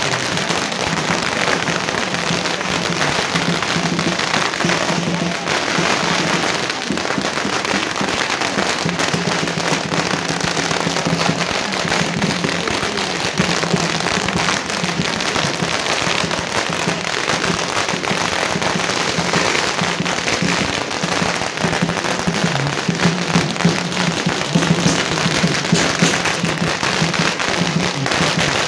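A long string of firecrackers going off in a rapid, unbroken crackle of pops, with music playing underneath.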